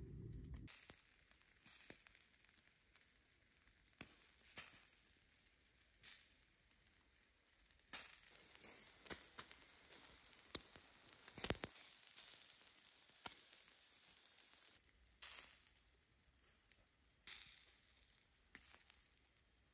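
Faint sizzling from steak cooking over glowing charcoal embers, a thin hiss broken by irregular pops and crackles, the sharpest a little past halfway.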